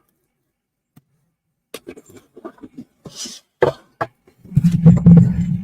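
A large cardboard box being opened and handled: scattered knocks and clicks, a short tearing hiss about three seconds in, then a loud low rubbing and scraping near the end.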